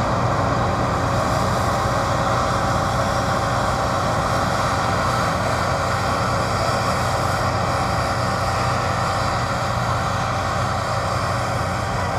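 Massey Ferguson Cerea 7278 combine harvester running close by while threshing winter barley: a steady, unbroken drone of engine and threshing machinery, with a few faint steady tones over it.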